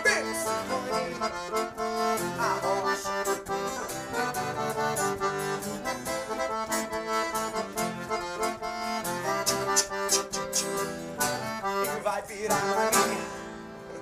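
Piano accordion carrying an instrumental sertanejo passage over strummed acoustic guitar, in sustained chords and runs, winding down to a final held chord near the end.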